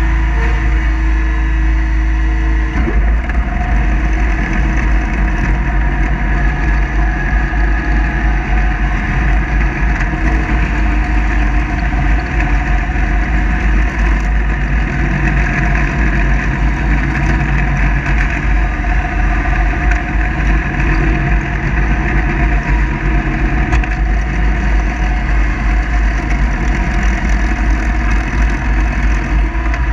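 Kubota zero-turn mower with a 54-inch deck running steadily while mowing, its engine and spinning blades making a constant loud drone over a heavy low rumble.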